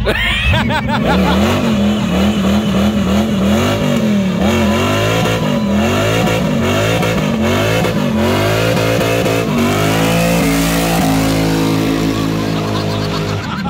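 Fourth-generation Chevrolet Camaro doing a burnout: the engine is revved hard in quick repeated surges, about two a second, then held at high revs for the last few seconds as the rear tyres spin.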